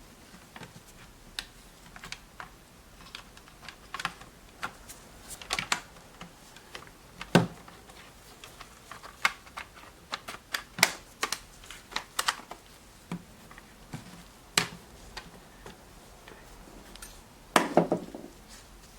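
Irregular light clicks and taps of a small portable recorder's plastic case and screws being handled and fitted back together, coming in small bunches, with a louder cluster near the end.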